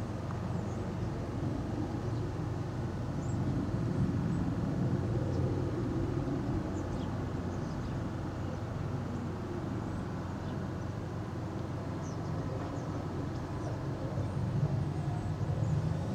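Ryanair Boeing 737-800's CFM56-7B turbofan engines heard as a steady, deep jet rumble as the airliner climbs away after take-off.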